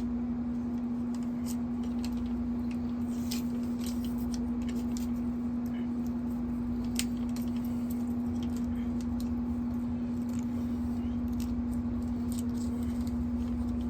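Air conditioner running with a steady, even hum, overlaid by scattered faint clicks and soft rustles.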